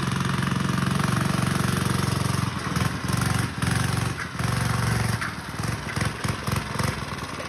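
Power Fist 79cc single-cylinder OHV four-stroke engine on a Kitty Cat snowmobile, running at high revs under load while pulling the sled with two riders aboard. After about two and a half seconds its revs start to rise and fall unevenly.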